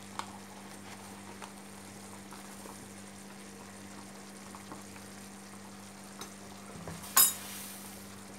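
A pot of meat and eggs at a rolling boil and a pan of chicken stew simmering on a gas stove: a faint, steady bubbling hiss over a low steady hum. A single sharp clink rings out about seven seconds in.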